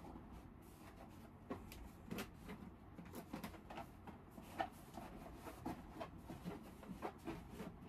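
Fabric window curtain being rolled up by hand: faint rustling with small, irregular crinkles and taps, a few of them a little sharper.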